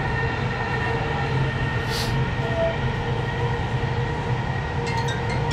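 Dubai Metro train running between stations, heard from inside the car: a steady rumble with a constant hum from the motors, a brief hiss about two seconds in, and a few light clicks near the end.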